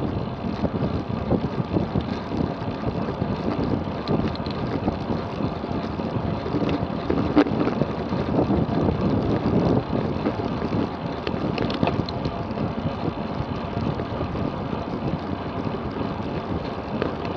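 Wind rushing over the microphone and road noise of a road bike ridden at speed, a steady rumbling rush with a few short ticks.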